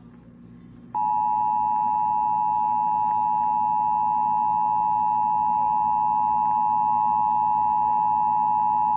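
Emergency Alert System two-tone attention signal, 853 Hz and 960 Hz sounded together. It starts about a second in and holds as one steady, unchanging tone, the warning that an emergency alert message is about to be read.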